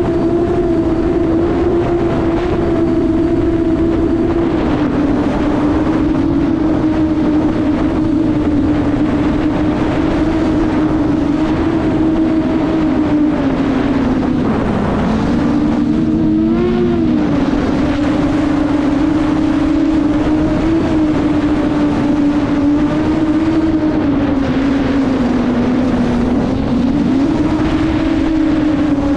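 Drone's motors and propellers whining steadily over rushing air, the pitch wavering with the throttle and dipping lower for a moment about halfway through.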